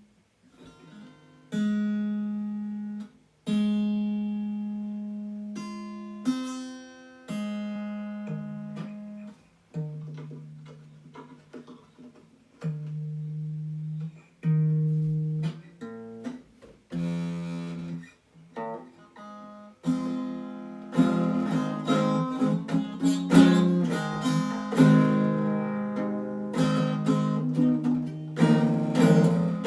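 Acoustic guitar played solo: slow plucked notes and chords, each left to ring out and fade, then fuller strummed chords from about twenty seconds in.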